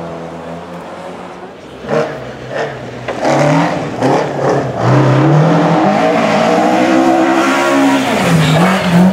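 Rally car engine revving hard as it comes down the gravel stage and passes close, its pitch climbing and dropping with the gear changes. Loud from about three seconds in, with a hiss of tyres on gravel as it goes by.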